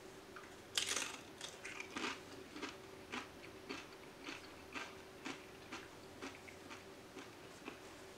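A tortilla chip with salsa bitten with a loud crisp crunch about a second in, then chewed, with short crunches about twice a second.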